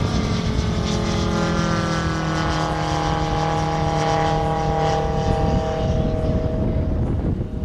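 Five-cylinder radial engine of a 1/3-scale radio-controlled Stearman biplane running in flight. Its pitch falls slowly over several seconds, over a low rumble.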